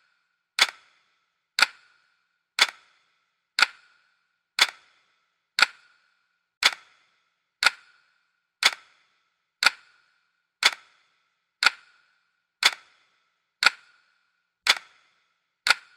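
Clock ticking steadily, one sharp tick each second.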